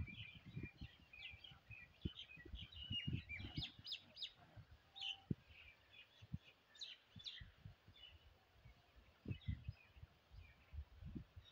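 Small birds chirping in short, repeated high calls, faint, over scattered dull low thumps and rustles.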